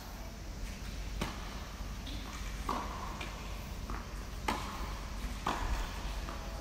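Tennis rally: racket strikes and bounces of a low-compression green tennis ball, five or so sharp hits spaced about a second apart, the loudest about four and a half seconds in.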